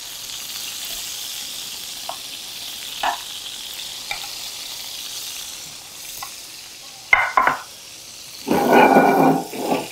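Hot oil sizzling in a frying pan as browned stuffed squid tubes are lifted out with tongs, with a few light clicks of the tongs against the pan. The sizzle eases after about six seconds, and a short louder scrape comes near the end.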